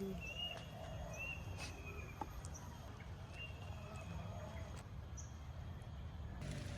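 Birds calling outdoors: several short, high, thin whistled notes over a steady low outdoor rumble.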